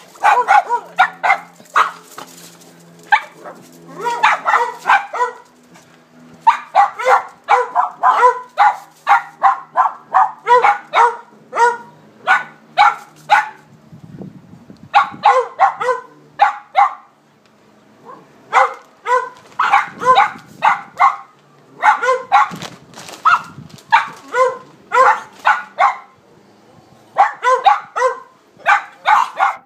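Dog barking in quick runs of short, sharp barks, about two to three a second, with brief pauses between the runs.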